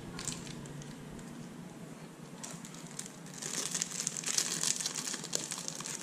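A small clear plastic parts bag crinkling as it is handled and opened, faint at first and becoming a louder, dense crackle from about three seconds in.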